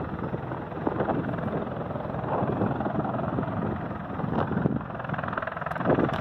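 Strong wind buffeting the microphone in irregular gusts, over the distant, steady rumble of a Sikorsky CH-53E Super Stallion helicopter running on the ground.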